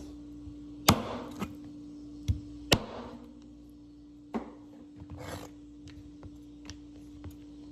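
Nails being cut off raw chicken feet: about five sharp cracks of a blade biting through, the loudest about a second in and near three seconds in, with handling rustle between. A steady low hum runs underneath.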